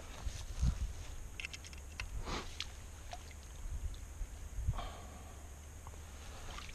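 Rubber landing net being dipped into shallow stream water, giving a couple of soft swishes and small splashes with scattered handling clicks, over a steady low rumble.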